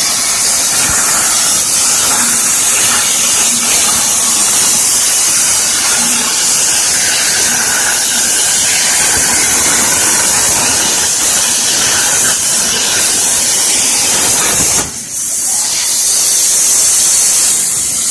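CNC plasma cutting torch hissing steadily as it cuts metal, cutting out briefly about fifteen seconds in and then resuming.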